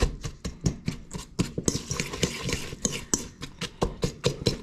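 A utensil clicking and scraping against a stainless steel mixing bowl in quick, irregular strokes, breaking up chunks in the meatball mix.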